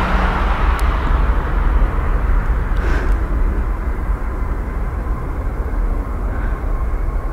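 Twin-engine jet airliner at takeoff power, heard from the side of the runway: a steady low rumble of the engines with a hissing roar that fades in the first second as the aircraft rolls away.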